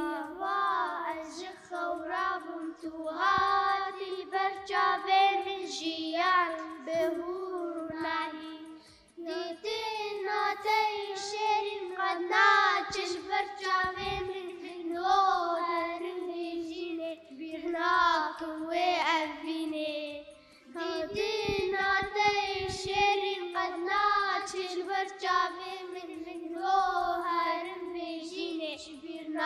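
Young girls singing a song with their voices only and no instruments, pausing briefly about nine seconds in and again about twenty seconds in.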